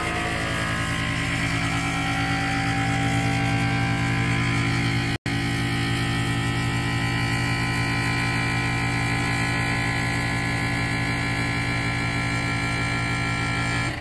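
Commercial-grade vacuum sealer's pump running with a steady hum as it draws the air out of the bag, then cutting off abruptly. There is a momentary break about five seconds in.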